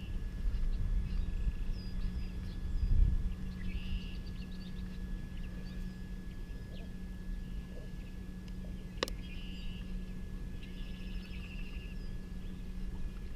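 Birds singing in short repeated trilled phrases over a steady thin high tone and a low rumble, with one sharp click about nine seconds in.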